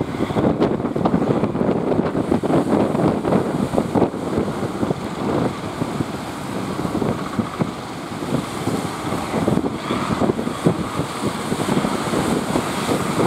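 Wind buffeting the microphone on a fishing boat at sea, with the rush of water and waves; a steady, unbroken noise that rises and falls in quick gusts.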